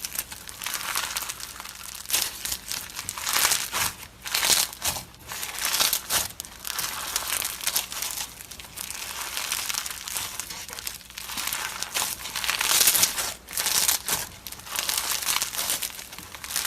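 Slime being squeezed and worked by hand, giving a continuous crackly crinkling noise in uneven surges, which cuts off suddenly at the end.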